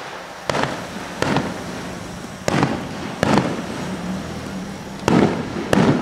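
Aerial firework shells bursting in a rapid finale barrage: about seven sharp bangs at uneven intervals, two of them nearly together a little over a second in and two close together near the end.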